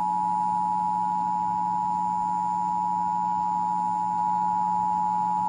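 Emergency Alert System attention signal: the dual-tone 853 Hz and 960 Hz alert tone, held steady, as relayed by a radio station for a Required Monthly Test.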